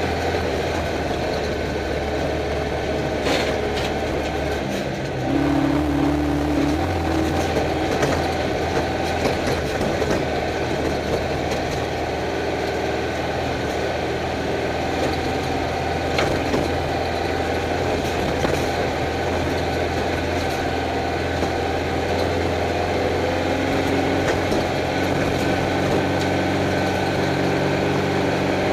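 Engine of a Class 11 Stock Bug, a stock air-cooled Volkswagen Beetle flat-four, running steadily as heard from inside the car. Its pitch shifts about five seconds in, and scattered rattles and knocks from the car run through it.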